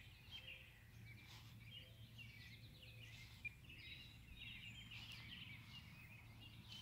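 Faint background birdsong: many small birds chirping in quick, broken phrases throughout, over a low, steady hum.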